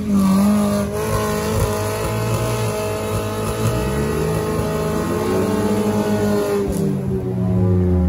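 Off-road vehicle engine revving hard under load while stuck on slippery forest ground. The revs are held high, then drop away near the end.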